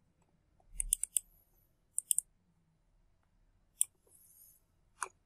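Computer mouse clicking: a few sharp clicks in small clusters, then single clicks spaced a second or more apart.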